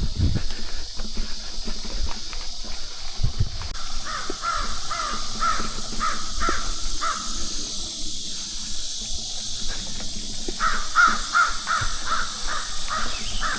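A bird calling in two runs of short, repeated calls, about two a second, over a steady hiss and scattered low knocks.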